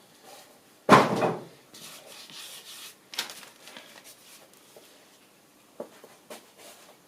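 Pieces of timber being handled: a solid wooden knock about a second in, then wood sliding and scraping against wood, a second knock, and a few lighter taps near the end.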